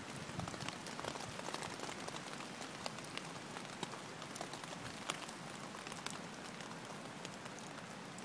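Rain falling steadily, with many sharp separate drops and drips landing among the steady patter.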